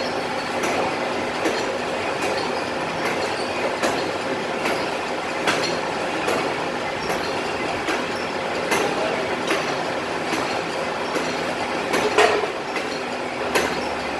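Hydraulic press's power unit running steadily, a dense mechanical hum, with scattered sharp clicks and clinks of metal as the pressed pressure-cooker lid is handled.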